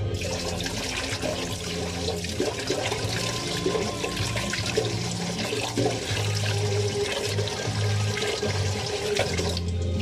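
Water running hard from a tap into a stainless steel sink, turned on suddenly and shut off shortly before the end, over background music.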